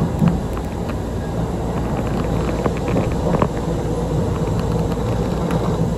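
Chikuho Electric Railway 3000-series electric train running along the line, heard from inside the car: a steady rumble of wheels and running gear with a faint steady hum and a few light clicks.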